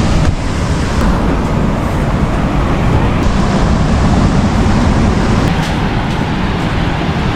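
A steady, loud rush of wind buffeting the microphone together with ocean surf, a deep rumbling noise with no clear rhythm.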